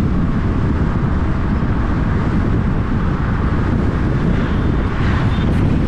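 Steady rush of wind and road noise from a car driving along, with wind buffeting the microphone.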